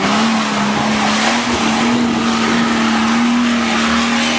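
Off-road 4x4 SUV's engine held steady at high revs under load, with a loud hiss and clatter of wheels churning loose rock and gravel as it tries to climb out of a stony hole.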